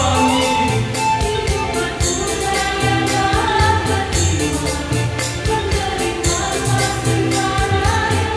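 Mixed choir of men and women singing in harmony over an accompaniment with a steady beat.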